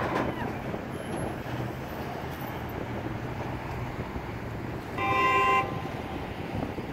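A passing vehicle's horn gives one honk of about half a second near the end, a driver honking in support of the protesters at the roadside, over steady traffic noise from cars going by.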